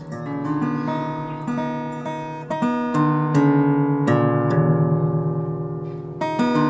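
Acoustic guitar music: plucked notes and strummed chords ringing on, changing chord every second or so.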